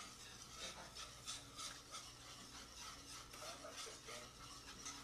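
Wire whisk scraping and swishing around a pot of thickening chili gravy, in quick even strokes of about three a second.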